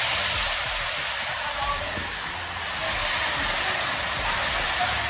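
Heavy rain pouring down in a steady hiss, with cars passing on the wet highway, their tyres spraying water.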